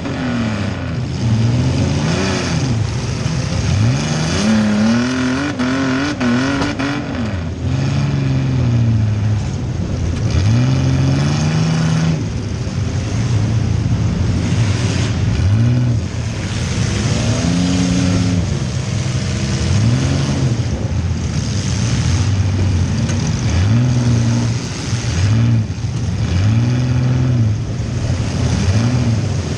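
Compact demolition-derby car's engine, heard from inside the car, revved up and let fall again and again as the car accelerates and backs off, with scattered knocks and bangs over it.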